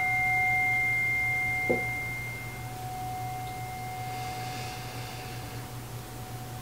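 Metal singing bowl ringing after being struck with a wooden stick, struck again lightly about two seconds in. It holds a clear low tone with higher overtones; the highest tone fades within a few seconds while the low ring lingers and slowly dies away.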